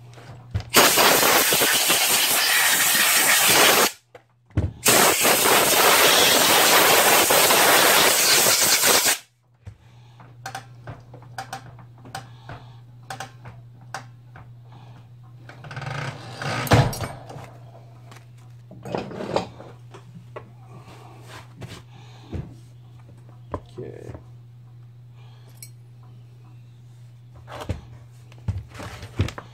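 A loud, steady rushing hiss in two stretches of about three and four and a half seconds, each cut off sharply. It is followed by scattered light clicks and knocks of tools and plastic parts being handled on the chainsaw, over a low steady hum.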